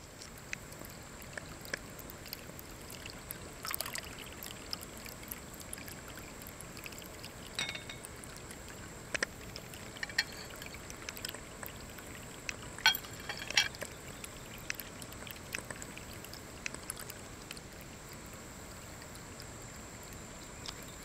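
Ceramic pet drinking fountain running: a steady trickle of water spilling from the spout of its top cup into the bowl below. Scattered brief sharp sounds stand out over it, the loudest about 13 seconds in.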